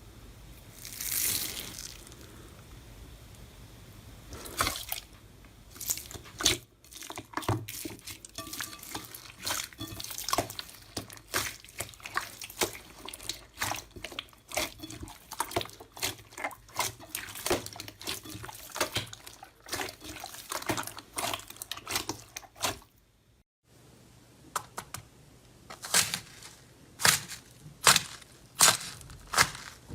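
Slime being squeezed and poked by hand: irregular wet, sticky pops and clicks, several a second. A brief gap comes about three-quarters through, followed by sharper, louder pops.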